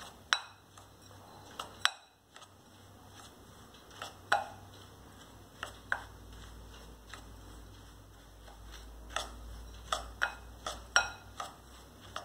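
Steel spoon clinking and scraping against a glass bowl while stirring crushed biscuit crumbs with butter and sugar: irregular sharp clicks, more of them close together near the end.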